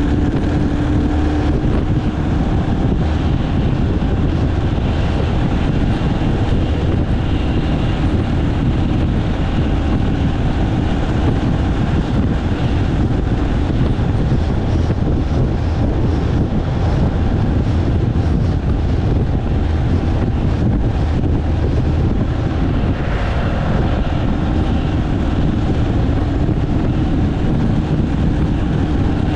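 Steady driving noise from a road vehicle at cruising speed: a continuous low engine drone mixed with tyre and wind noise.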